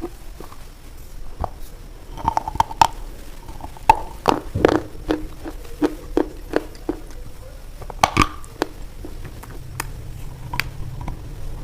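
A knife cutting a bar of white soap: a run of irregular crisp crunches and clicks, densest between about two and five seconds in and again around eight seconds.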